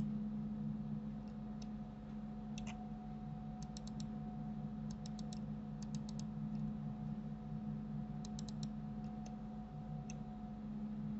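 Light clicking of computer mouse and keyboard controls, in quick runs of three or four clicks with short gaps between, over a steady low electrical hum.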